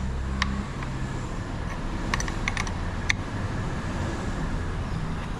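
A handful of small, sharp clicks and taps, like hand tools and plastic parts being handled during a motorcycle headset teardown, over a steady low rumble.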